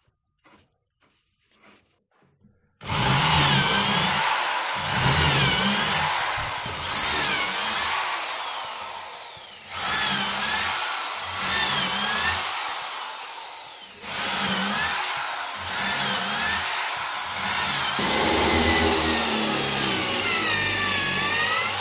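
Electric drill with a long wood bit boring holes into a log, starting about three seconds in. The motor's pitch sags as the bit bites into the wood and climbs again, over and over, with short lulls between holes.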